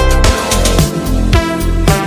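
Background music with a steady beat and a heavy bass line.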